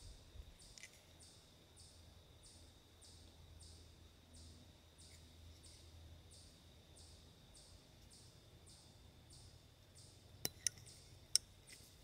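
A button lock folding knife with a titanium handle gives three sharp metallic clicks near the end as its blade is closed. A faint, regular high chirping repeats about twice a second in the background.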